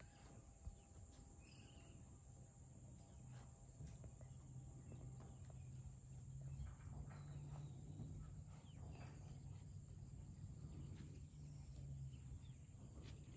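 Near silence: a faint steady high-pitched drone and a low hum, with soft, scattered footfalls of a yearling colt and a man walking on deep arena sand.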